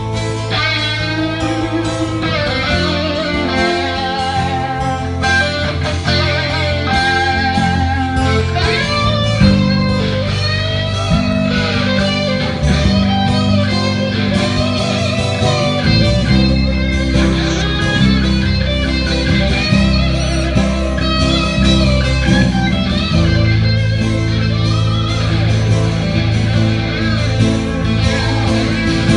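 Live band music at a sound check: electric guitar playing a lead with wavering, bent notes over sustained bass notes that change every second or two.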